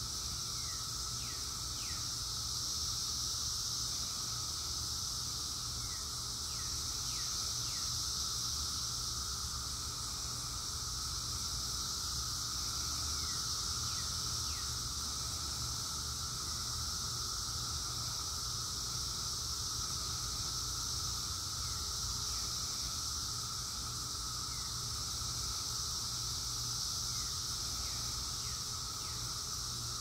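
Cicadas droning in a steady, continuous chorus, with a few short high chirps scattered through it and a low rumble underneath.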